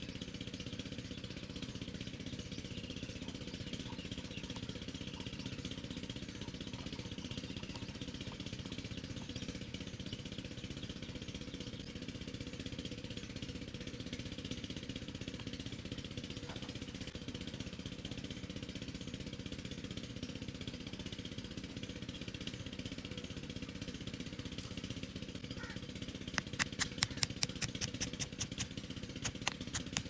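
A steady low mechanical hum runs throughout. Near the end comes a quick run of a dozen or so sharp taps, a hammer driving a thin wooden peg into the soil.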